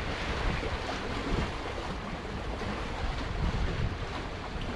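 Wind rumbling on the microphone in uneven gusts, over a steady hiss of river water washing against the pier.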